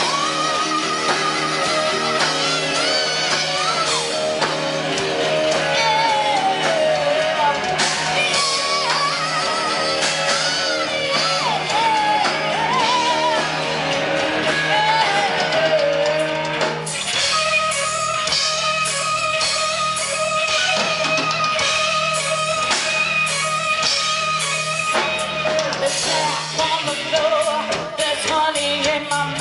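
Live rock band playing: a woman's lead vocal over electric guitar, bass and a drum kit, with a long held note in the middle before the melody moves again.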